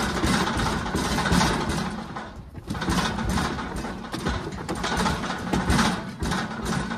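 An engine running steadily, with irregular knocks and rattles over it.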